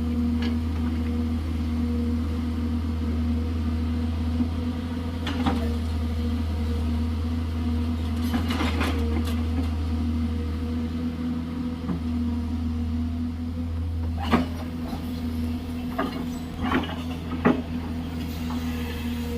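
Excavator diesel engine running steadily, with a few sharp clanks and knocks from the bucket working rock and gravel, clustered about halfway through and again in the last few seconds.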